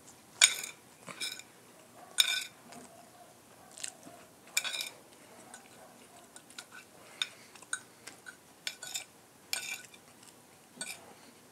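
Metal spoon and fork clinking and scraping against a ceramic plate while eating. About a dozen sharp, ringing clinks come at irregular intervals, the loudest near the start.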